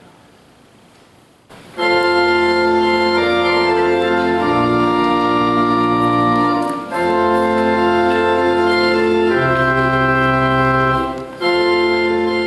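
Organ playing slow, full held chords over a deep bass line, starting suddenly about a second and a half in, with the chord changing every two to three seconds.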